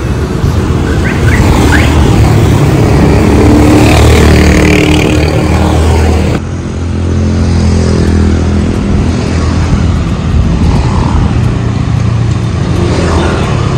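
Road vehicle engine running steadily while driving, with road and wind noise. The sound changes abruptly about six seconds in, as at a cut.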